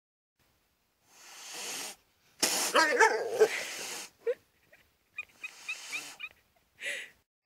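Animal vocal sounds: a breathy rush, then a loud call of about a second and a half with wavering pitch, followed by a few short faint squeaks.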